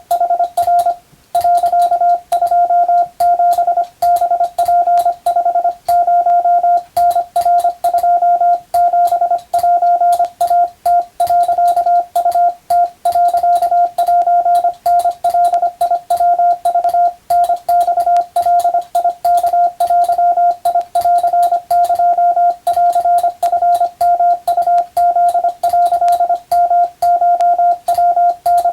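Morse code (CW) as a single steady beep tone keyed on and off in a fast, unbroken run of dots and dashes, with a brief pause about a second in. Sharp clicks come along with the keying.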